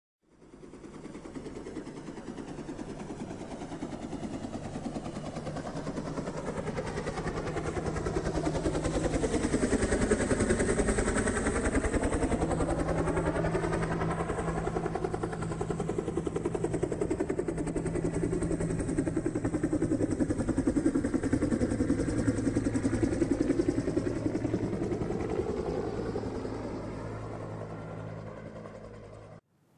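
An engine running, growing louder over the first ten seconds and fading near the end, its tone sweeping down and back up as it moves past.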